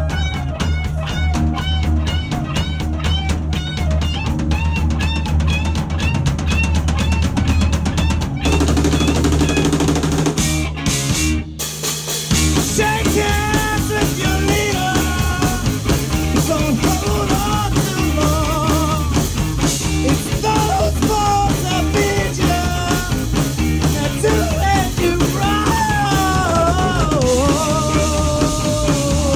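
Live rock band playing: a drum kit keeping a fast, even beat under electric and acoustic guitars. The band drops out briefly about eleven seconds in, then comes back in with a melodic line on top.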